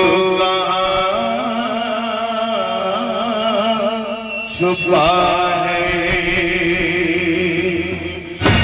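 Male singer singing through a microphone and loudspeakers in a wavering, ornamented style, two long held phrases with a short break about halfway, over a steady held accompaniment note.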